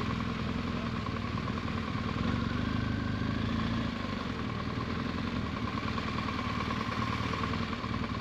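Motorcycle engine running steadily under way, with a constant high tone above the engine hum.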